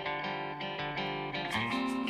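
Background music led by guitar, with held and plucked notes; a steady percussion beat comes in about one and a half seconds in.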